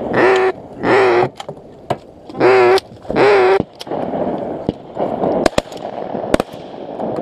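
Duck call blown in four short quacks about a second apart, calling ducks back toward the decoys. A few sharp clicks follow near the end.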